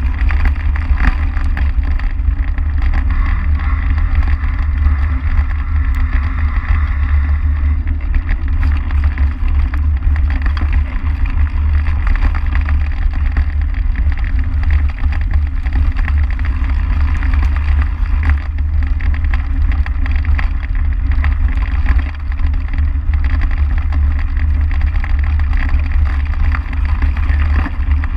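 Steady rumble of wind buffeting and tyre vibration picked up by a camera mounted by the front wheel of a bike riding along a grassy track.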